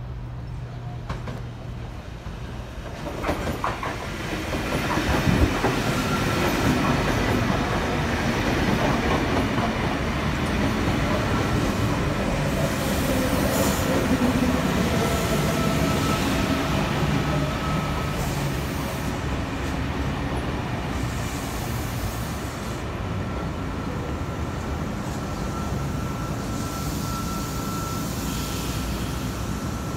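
A V set double-deck electric intercity train running into the platform and slowing. Its rumble swells about four seconds in as it comes alongside, and a thin, steady, high squeal comes and goes.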